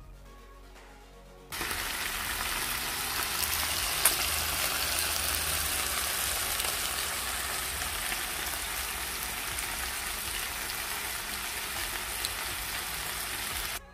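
Tilapia fillets sizzling steadily as they fry and brown in a nonstick frying pan, the sizzle cutting in abruptly about a second and a half in, with one sharp tick near four seconds. Soft background music plays before the sizzle starts.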